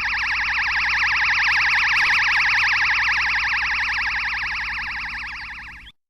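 Dragon Ball Kamehameha sound effect, the energy charge-up: a high, rapidly warbling siren-like tone that holds steady, fades a little toward the end and cuts off abruptly just before the blast.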